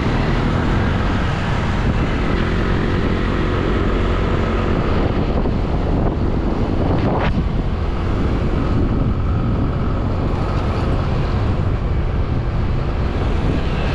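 Vehicle on the move: steady engine and road noise, with wind on the microphone.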